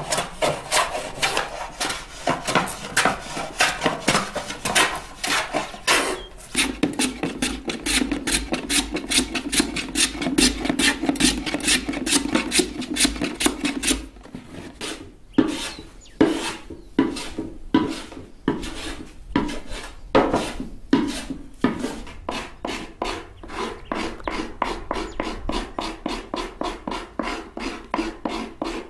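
Hand plane shaving a lenga-wood bowl in quick, repeated scraping strokes. The strokes are fast and close together at first, run more steadily for a while, and after about fourteen seconds come more spaced out, about one or two a second, before quickening again near the end.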